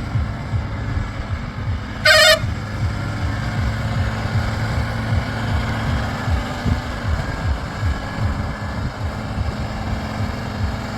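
Heavy diesel engine running steadily with a throbbing low beat, and a short horn blast about two seconds in.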